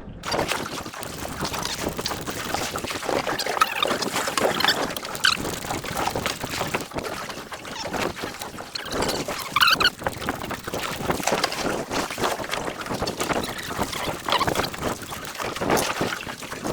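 Water sloshing and splashing around a boat at sea, with wind on the microphone and a few short high squeaks now and then.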